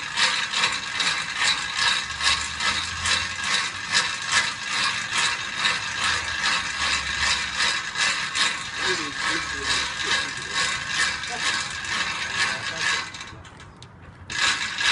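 Hand winch on a car-transporter trailer, its ratchet clicking in a steady rhythm of about two clicks a second as the strap hauls a car up the ramps. It pauses for about a second near the end, then resumes.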